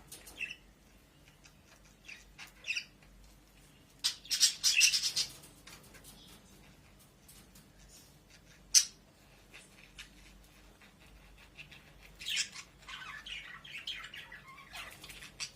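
Pet budgerigars chirping and squawking in short, scattered calls, with a loud burst of calls about a quarter of the way in and busier chattering near the end. A single sharp click about halfway through is the loudest sound.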